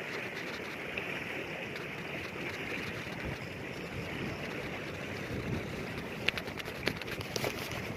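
Steady wash of wind and small waves against a stone sea wall, with a few light clicks and taps in the last two seconds.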